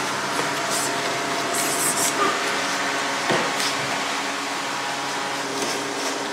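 A steady mechanical hiss with a low, even hum under it, broken by a single sharp knock a little past three seconds in.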